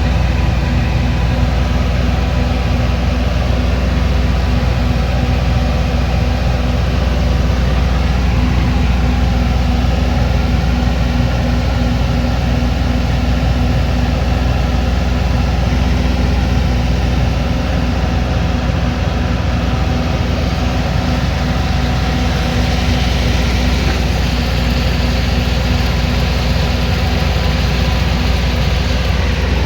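Heavy machinery running steadily: a constant, deep engine drone that does not change.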